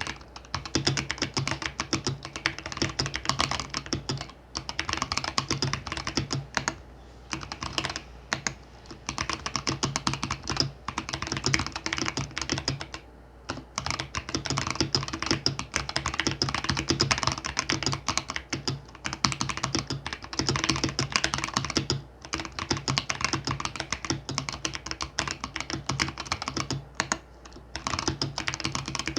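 Mechanical keyboard with Gazzew Boba U4T tactile switches on stock 68 g springs being typed on in fast runs of keystrokes, broken by short pauses every few seconds. A faint steady hum lies underneath.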